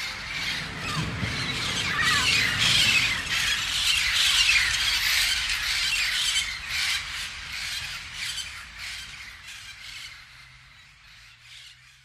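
A flock of parrots squawking, many harsh calls overlapping. The calls swell to a peak midway and then fade out toward the end.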